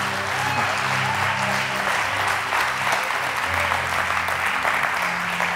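Congregation applauding steadily, with soft held music notes underneath.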